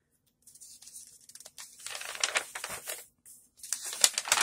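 Magazine pages being turned by hand: paper rustling and crinkling in two rounds, the second, near the end, the loudest.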